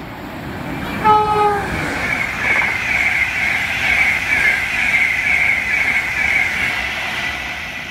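A fast electric express train, an InterCity 225 set of Mark 4 coaches, sounds one short horn note about a second in, then runs through at speed with a steady high-pitched rush of wheels on rail that eases off near the end.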